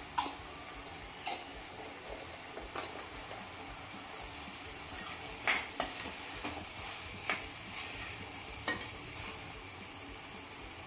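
Vegetables frying in sauces over a high flame, sizzling steadily, while a utensil stirs them and clinks sharply against the pan about eight times at irregular intervals.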